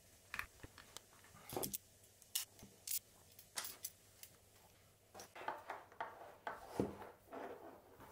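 Faint, irregular small clicks and rubbing of plastic and metal fittings handled by hand: clear aquarium air hose being pushed onto plastic check valves and small metal hose clamps.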